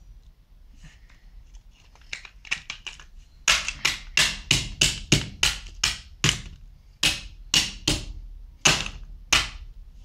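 Hammer blows smashing a plastic RC car remote control. A few light taps, then from about a third of the way in a quick run of hard strikes, about three a second, thinning to a few spaced blows near the end.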